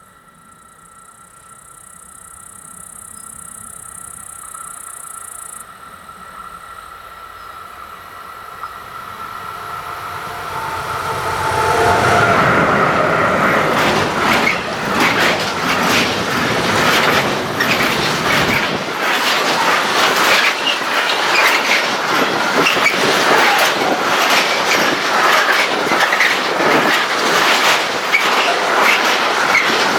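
A train approaching and passing close by: it grows steadily louder over the first dozen seconds, then goes by loudly with fast, dense clatter of wheels over the rails for the rest of the time.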